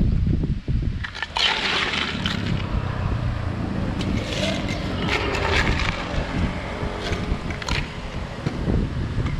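Ice cubes clattering and clinking against a drinking glass as it is scooped through a cooler of ice, in several short bursts, over a low rumble.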